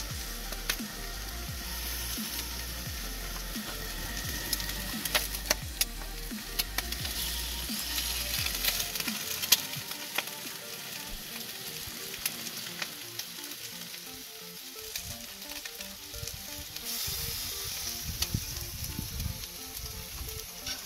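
Food frying in hot oil in a pan: a steady sizzle with frequent sharp pops and spits of oil.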